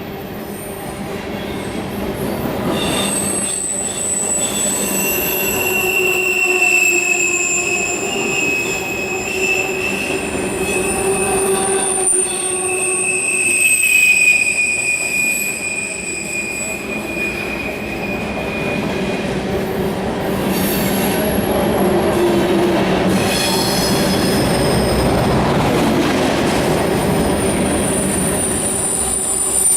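Freight train's rail cars rolling past, their steel wheels squealing against the rails in long, slowly wavering high tones over a steady rumble, with some clickety-clack.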